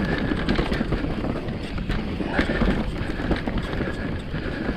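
Mountain bike on a dirt trail: irregular knocks and rattles over a steady rushing noise.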